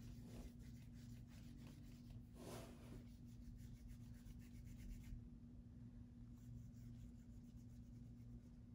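Faint scratchy strokes of a colouring tool on paper as parts of a drawing are coloured yellow, quicker in the first half with one louder rub about two and a half seconds in, then fainter. A low steady hum runs underneath.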